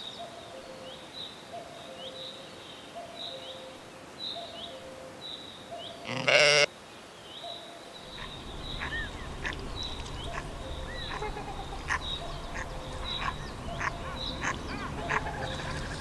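A sheep bleats once, loudly, for about half a second about six seconds in, over faint small chirps repeating about twice a second. From about eight seconds in a louder, noisier background takes over, with many short clicks and small calls.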